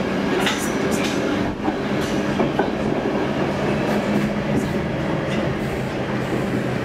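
Stockholm Metro C6 subway car running at speed, heard from inside the car: a steady rumble and hum from the running gear, with scattered clicks as the wheels pass over the rails.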